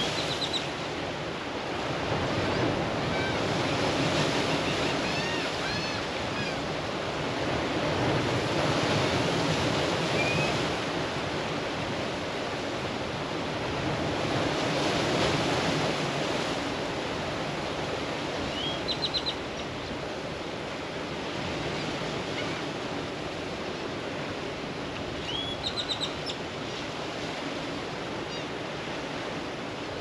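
Small sea waves washing in against shoreline rocks, a steady rush that swells and eases every five or six seconds. A bird gives short rising chirps at the start, about two-thirds through and near the end, each a quick string of notes.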